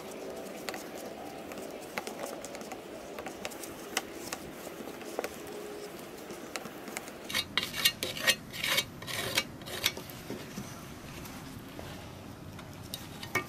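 A small plastic spreader stirring and scraping two-part epoxy on a paper plate, with many light taps and clicks. A run of louder, quick scraping strokes comes about eight to ten seconds in.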